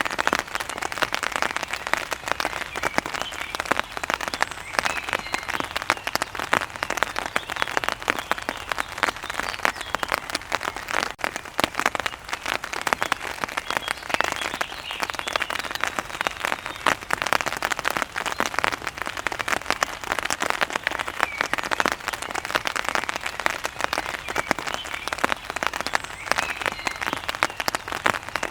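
Rain falling on an umbrella: a dense, steady patter of drops striking the canopy.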